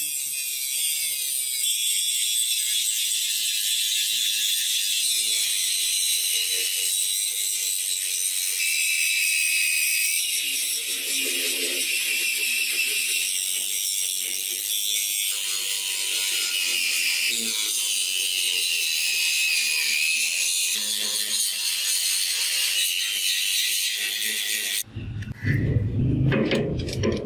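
Angle grinder with an abrasive disc grinding the bevel of a steel axe blade: a steady high-pitched grinding hiss whose pitch shifts as the disc moves along the edge. About two seconds before the end it gives way to louder, irregular rubbing and scraping.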